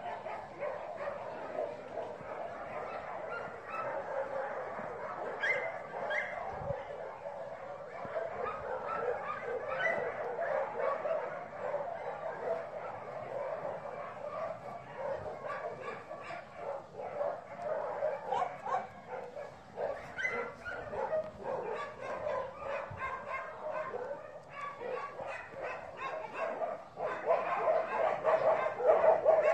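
Dogs barking, yipping and whimpering in a continuous, overlapping chorus that grows louder over the last few seconds.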